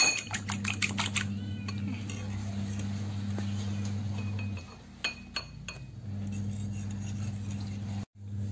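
A metal utensil clinking against a ceramic bowl as eggs are beaten: a quick run of clinks in the first second, then a few more about five seconds in. A steady low hum runs underneath and drops out for a second or so in the middle.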